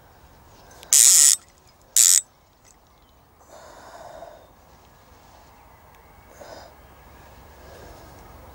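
A centrepin reel's ratchet clicking in two short loud bursts about a second apart, the first a little longer, followed by fainter rustling.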